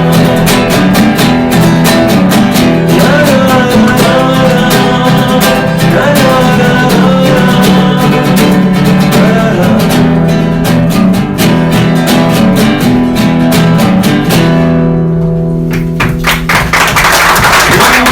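Music: rapidly strummed acoustic guitar with a wavering melody line over it. Near the end the guitar fades and a brighter, rattling texture comes in.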